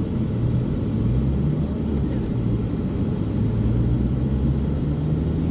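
Motor vehicle engine running steadily under way, with road noise, its engine note rising a little near the end.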